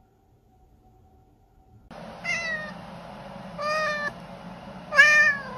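Tabby cat meowing: three loud meows about a second and a half apart, the last the loudest, with a fourth beginning at the end. The meows start about two seconds in, after a faint steady tone.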